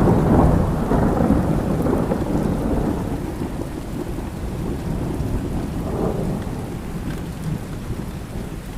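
Thunder rumbling loudly and slowly fading away, with a smaller rumble about six seconds in, over steady rainfall.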